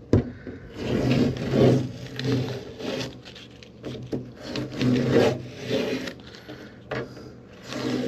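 Protective tape being peeled and pulled off the fuselage skin around freshly drilled holes, in several separate rips and rustles, with a sharp click at the start.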